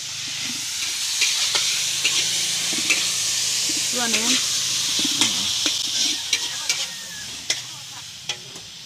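Food frying in a large metal wok: hot oil sizzling steadily while a metal ladle stirs and scrapes, clicking and tapping against the pan. The sizzle eases off in the last second or so.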